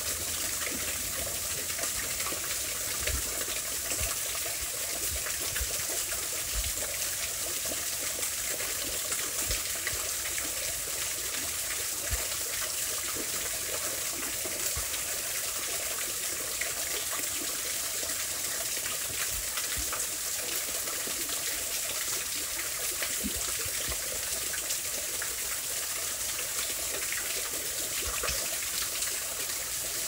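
Small waterfall pouring in a steady rushing splash, heard from right under the falling water, with occasional low thumps.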